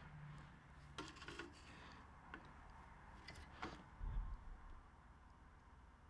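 Near silence: room tone with a few faint scattered clicks and a soft low bump about four seconds in.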